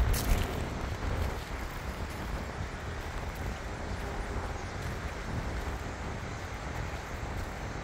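Wind rumbling on the microphone over a steady outdoor background hiss, a little stronger in the first half second.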